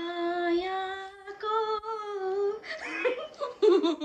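A woman singing along to music only she hears through her earphones, so she cannot hear her own voice: long held notes that rise slightly partway through. About two and a half seconds in the singing breaks off into laughter.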